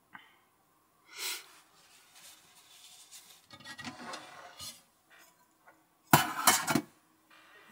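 Dishes and utensils clinking and clattering as they are cleared into a small metal galley sink, with rustling between. The loudest moment is a quick cluster of several clattering knocks about six seconds in.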